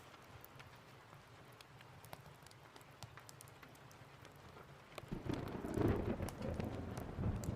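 Steady rain with scattered sharp crackling ticks; about five seconds in, a loud, deep thunder rumble swells up and rolls on.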